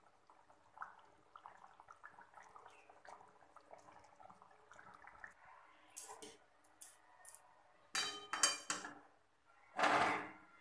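Faint bubbling and popping of the thick fish curry in an aluminium kadai, followed by metal cookware clinks and knocks: a few single ones, then a cluster about eight seconds in. Near the end comes a short, louder scrape of the pan.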